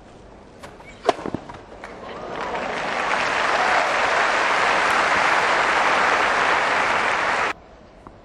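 A few sharp knocks, then tennis crowd applause that builds over a couple of seconds, holds steady and loud, and cuts off abruptly near the end.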